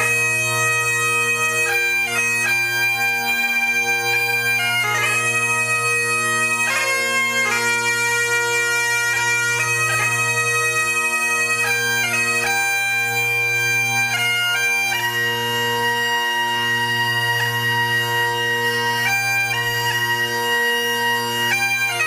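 Bagpipes playing a slow melody over a steady low drone, with one long held note about two-thirds of the way through.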